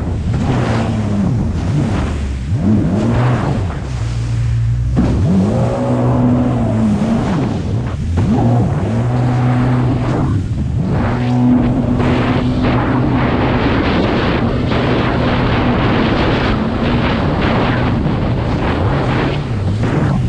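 Jet ski engine running at speed. Its note dips and climbs back several times, then holds steady through the second half, over the rush of water spray and wind noise on the microphone.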